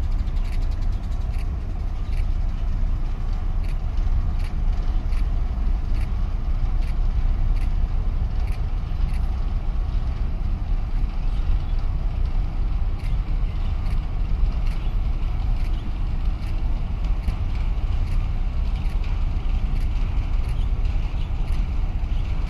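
Wind buffeting the microphone: a steady, gusty low rumble with no clear engine tone.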